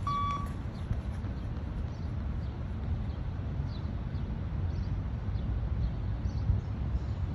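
A short electronic beep from a beep-test (shuttle-run) recording sounds once at the start, marking the end of a shuttle. It is followed by a steady low rumble of outdoor noise with faint footfalls.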